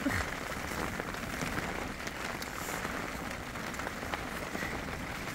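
Rain falling steadily on a tent's fabric, heard from inside the tent as an even patter with scattered light drop ticks.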